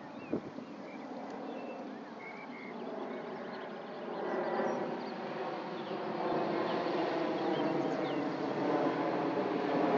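A steady engine drone with many overtones, growing louder from about four seconds in, with a few faint high bird chirps in the first seconds.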